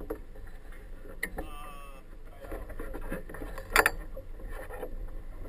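Knocks and clanks of a small boat coming alongside a floating dock, the loudest a single sharp knock near the end, with a short wavering squeak about a second and a half in, over a low steady rumble.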